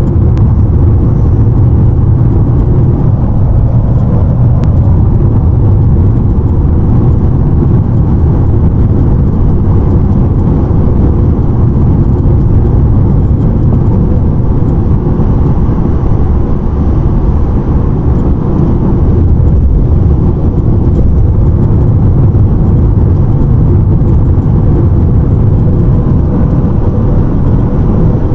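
Steady, loud road and wind noise inside a 2020 Honda CR-V at highway speed, 60–70 mph. Occasional faint ticks sound over it: the creaking and rattling noise that the owner reports as a defect.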